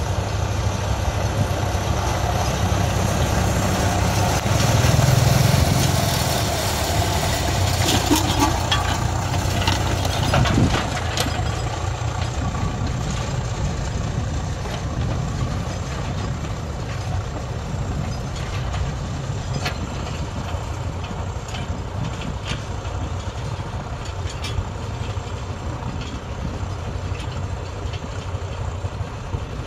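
Tractor engine running steadily while it works up paddy-field bunds. It swells louder about five seconds in and gives a few sharp knocks between about eight and eleven seconds, then runs quieter and more evenly.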